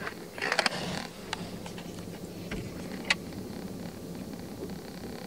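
Sipping through a plastic straw from a lidded plastic cup: the straw creaks in the lid, with a few short rustles and a couple of sharp clicks over a low steady hum.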